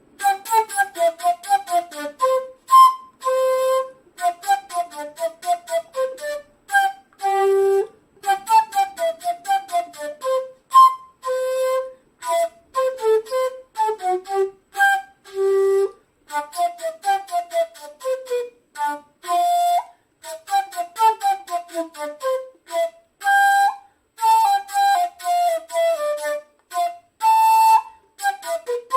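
Solo shakuhachi playing a quick melody in short, separated notes, each note cut off with the tongue, with many falling runs and a few longer held notes. It is played without vibrato.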